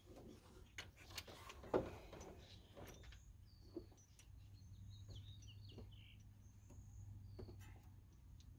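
Quiet, with scattered faint clicks and one sharper tap about two seconds in, from the idler pulley's bolt, washer and spacer being fitted back on by hand. Faint bird chirps come in around the middle.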